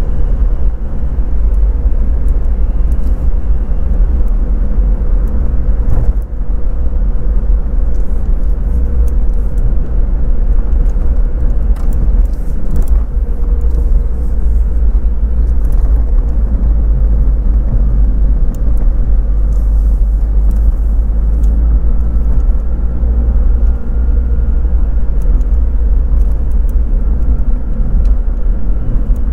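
Daihatsu Copen convertible driving along: steady engine and road noise dominated by a heavy low rumble, with a brief dip about six seconds in.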